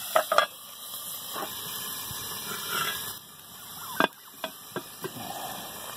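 Sausage frying in a cast iron skillet over an open wood fire, with a few sharp knocks and cracks: the loudest come just after the start and about four seconds in.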